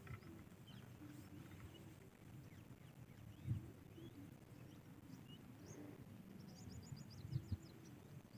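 Faint outdoor ambience with scattered bird chirps and a rapid high trill near the end. Two dull low thumps come about three and a half and seven and a half seconds in.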